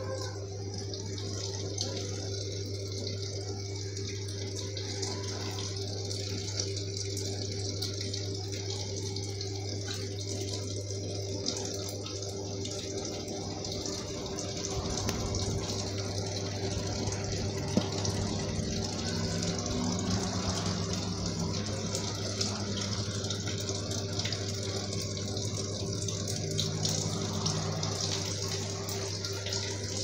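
Samsung 7 kg top-load washing machine filling mid-wash: a stream of water splashes steadily into the drum onto sudsy clothes as they turn, over a steady low hum.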